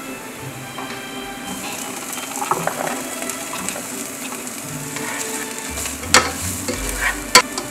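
Food sizzling in a hot pan while it is stirred, with a few sharp knocks of a utensil against the pan, the loudest near the end. Soft background music runs underneath.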